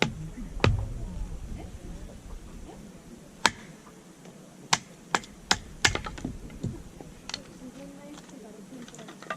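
About ten irregular, sharp knocks and clicks over several seconds, some with a dull thud beneath them, like hard objects being struck or handled.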